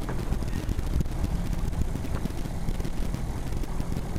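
Wind buffeting the microphone on an open boat, over a steady low rumble.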